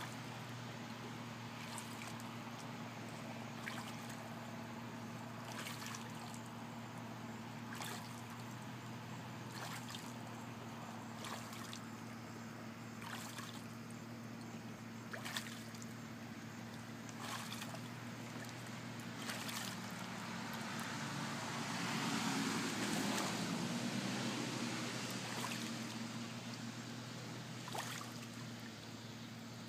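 Water splashing and dribbling in a shallow plastic wading pool as a domestic goose dips its bill in and lifts it out, with small splashes about every two seconds over a steady low hum. Partway through, a broad rush of noise swells and fades over several seconds.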